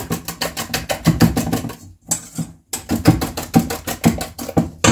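Hand wire whisk beating egg-and-sugar batter in a stainless steel bowl: a fast, even clatter of wire strokes against the metal, with a brief pause about two seconds in.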